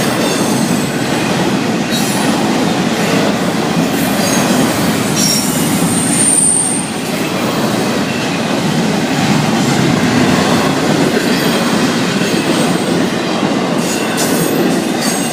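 Freight cars of a unit train rolling past at close range: a loud, steady rumble of steel wheels on rail, with a short high wheel squeal about six and a half seconds in.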